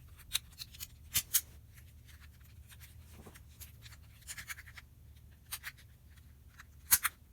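Small plastic twisty-puzzle pieces being handled and pressed back together: scattered light clicks and scrapes, with two sharp clicks close together near the end.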